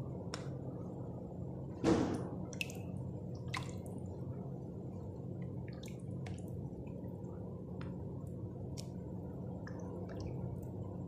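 Small water sounds of goldfish feeding at the surface of a bowl: scattered drips, splashes and clicks, with one louder thump about two seconds in, over a steady low hum.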